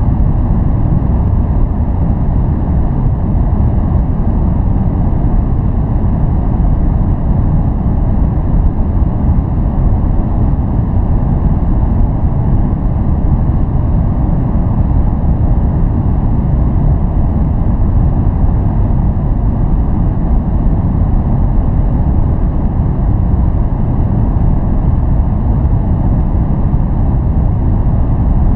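Steady, loud noise for focus or relaxation, an unchanging deep hiss weighted toward the bass with little in the treble and no separate events.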